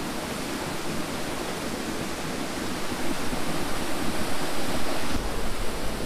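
Waterfall pouring down onto rocks close by: a steady rush of falling water. A low rumble joins it near the end.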